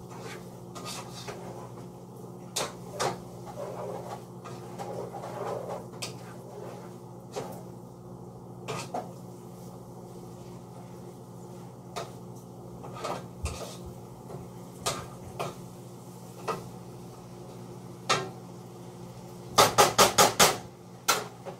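A spoon stirring food in a pot, scraping and knocking against the pot now and then over a steady low hum. Near the end comes a quick run of about six loud knocks, the loudest sound here.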